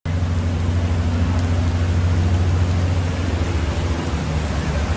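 Steady rushing noise of floodwater and rain, with a low rumble from vehicles driving through the flooded street.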